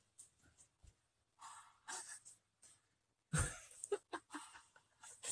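Soft breathing and breathy stifled laughter close to a phone's microphone, with a louder breathy puff about three and a half seconds in and a few small clicks after it.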